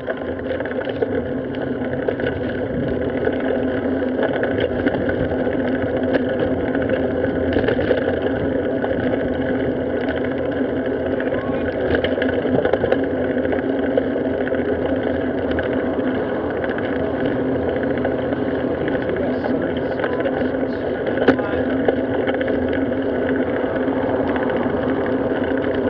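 Steady rumble of wind and road noise from a bicycle-mounted camera riding along a street, with a sharp click about three quarters of the way through.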